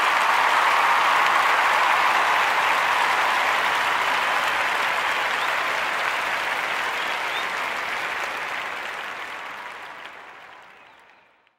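Audience applause, a dense, steady clapping that fades out over the last three seconds.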